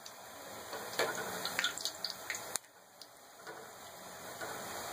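Pakoras deep-frying in hot oil in a metal karahi, a steady sizzle. Clicks and scrapes come from the slotted metal spoon turning them in the first half, then stop suddenly, leaving the sizzle alone.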